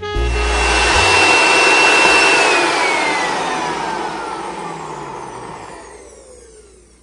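NutriBullet blender motor running at full speed while blending a cup of pesto, with a high whine. After about two and a half seconds the whine falls steadily in pitch and the noise fades as the motor winds down.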